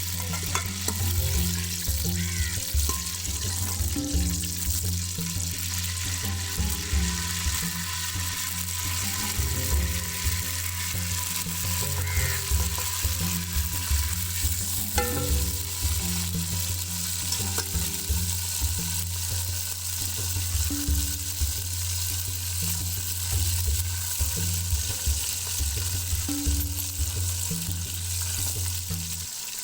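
Food sizzling as it fries in a pan, with stirring.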